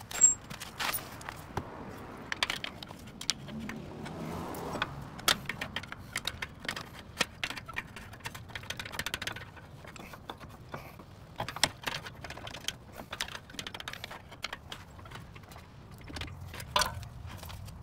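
Irregular metallic clinks, clicks and knocks of a front CV axle and suspension parts being handled by hand in the wheel well, with a sharper knock near the start and another near the end.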